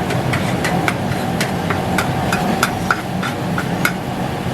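Metal spatula clanking against a wok while fried noodles (mee goreng) are stir-fried, about three sharp, ringing strikes a second at an uneven rhythm, over a steady rushing background.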